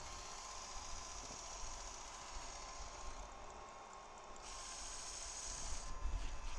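Work Sharp Culinary E5 electric knife sharpener running with a faint steady motor whine while a kitchen knife blade is drawn through its sharpening slot with a soft hiss. The hiss grows louder about four and a half seconds in and again near the end.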